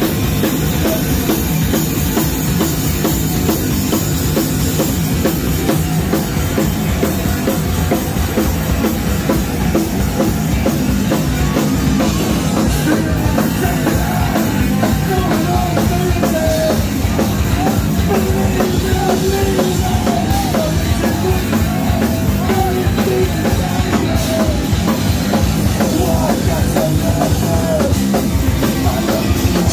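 Rock band playing live at full volume, the drum kit prominent over the guitars.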